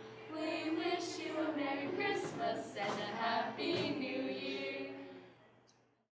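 Group of teenage girls singing a Christmas carol together a cappella, several voices at once, fading out to silence near the end.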